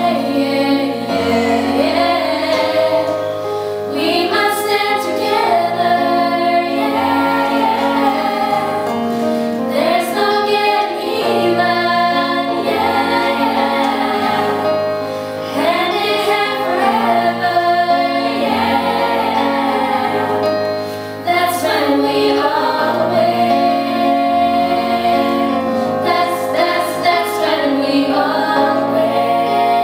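A teenage girls' choir singing a soul-pop song, a solo voice carried over the microphone above the group's harmony, over low sustained accompaniment chords.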